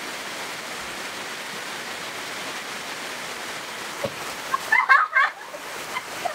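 Steady rushing noise, with a short cluster of high-pitched cries about five seconds in.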